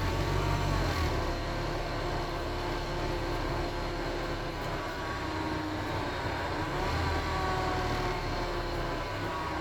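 Wright StreetDeck double-decker bus with its Mercedes-Benz OM934 four-cylinder diesel running, heard on board while under way: a groaning noise made of several steady tones over the engine's low rumble, the tones gliding up in pitch about seven seconds in.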